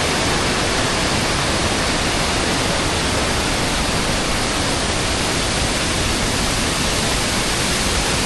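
Waterfall roaring close by: a steady, loud rush of falling water.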